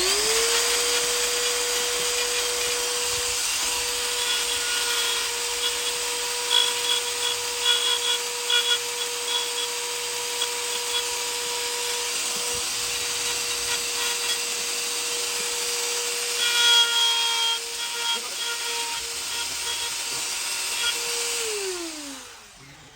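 Electric power tool motor spinning up, running at a steady high whine, then winding down near the end, with a hiss over it. Two spells of louder, uneven noise, a few seconds in and again about three-quarters through, fit the tool cutting into wood.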